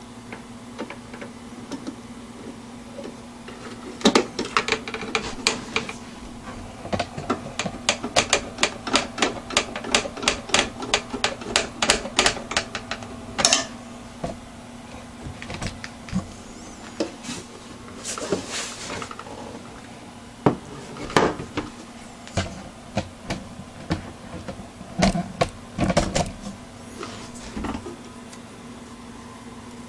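A run of sharp small clicks, about three a second for several seconds, then scattered clicks and knocks, over a steady low hum.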